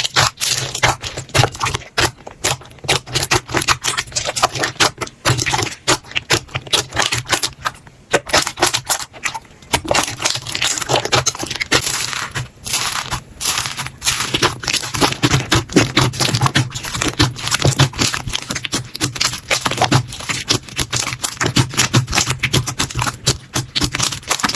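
Slime being squeezed and pressed by hand, making a dense, irregular run of crackles and sticky clicks.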